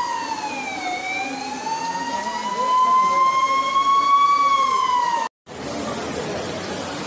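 Emergency-vehicle siren wailing in a slow fall and rise of pitch. It cuts off abruptly about five seconds in, and after a brief gap a steady rushing noise follows.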